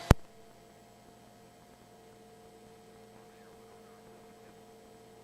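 A single sharp click at the start, then a faint, steady electrical hum with a few thin, steady tones.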